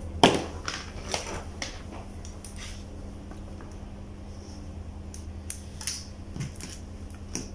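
Scattered sharp clicks and snaps of crimping pliers working on wire ends and crimp terminals while a jumper wire is made to bypass a blown thermal fuse. The loudest snap comes just after the start, with a steady low hum underneath.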